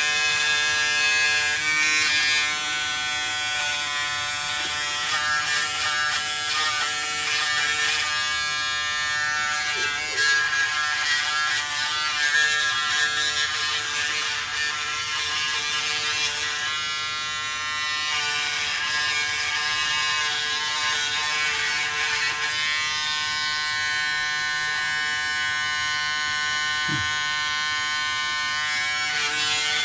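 Braun Series 7 360 Flex electric foil shaver running steadily, a continuous buzz that changes tone now and then as the head is moved over a face lathered with shaving gel in a wet shave.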